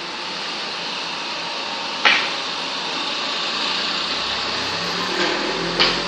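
Steady hiss of room noise, broken by two sharp clacks, one about two seconds in and one near the end, with a fainter knock just before the second.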